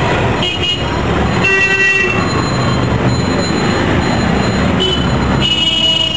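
Steady road traffic noise with short vehicle horn toots, about three of them, the last near the end.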